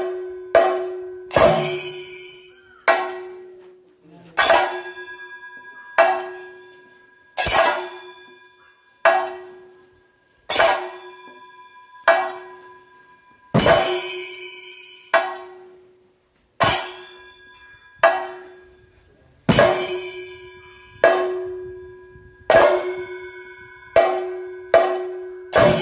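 Kerala thayambaka ensemble playing at a slow tempo: chenda drum strokes struck together with bell-metal ilathalam cymbals, one stroke about every one and a half seconds, each ringing and dying away. Quicker in-between strokes come in near the end.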